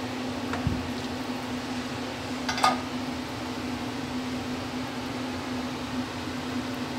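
A steady mechanical hum over a low hiss, with a brief metallic clink about two and a half seconds in as the ladle knocks against the stainless steel cooking pot.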